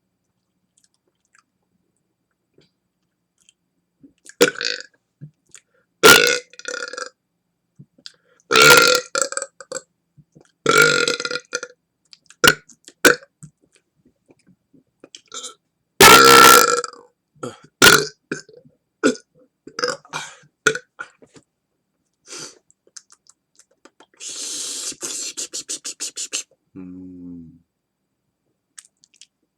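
Deliberate air-swallowed burps: a string of loud belches starting a few seconds in, with short clicks between them. Near the end comes a rapid rattling burp, then a short one that drops in pitch.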